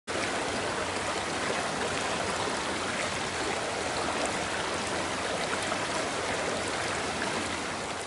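Mountain stream running over rocks, a steady even rush of water that starts to fade out near the end.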